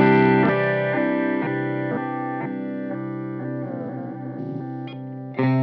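Electric guitar chord played through an Intensive Care Audio Fideleater pedal, ringing out and slowly fading with a warble from the pedal's very short delay, which acts like a vibrato. A new chord is struck near the end.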